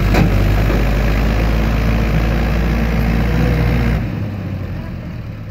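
Diesel tractor engine running hard and steady as it pulls a loaded trailer through soft soil, easing off about four seconds in. A sharp click comes just at the start.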